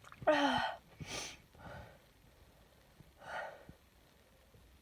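A woman with a cold or flu sneezes once, a short sneeze with a falling voiced cry, then sniffles with two noisy breaths, about a second and about three seconds later.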